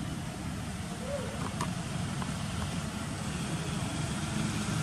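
Steady low rumble of outdoor background noise, with a few faint ticks about a second and a half in.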